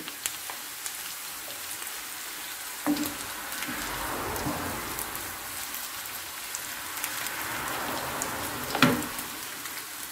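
Mashed potato and onions sizzling in oil in a frying pan, with a steady hiss, stirred with a wooden spoon that knocks against the pan about three seconds in and again near the end.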